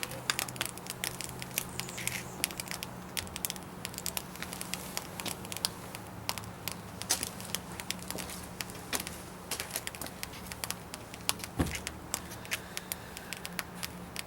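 Baking soda and vinegar reacting inside a homemade model volcano, the red foam fizzing with a dense, irregular crackle of popping bubbles.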